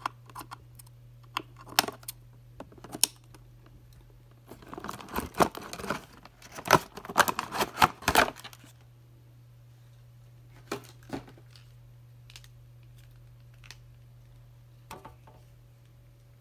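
Scissors snipping the thin wire ties that hold a plastic action figure to its cardboard box insert: a few sharp snips. About four and a half seconds in comes a longer stretch of rustling and scraping of cardboard packaging as the figure is worked free of the box, followed by a few scattered clicks.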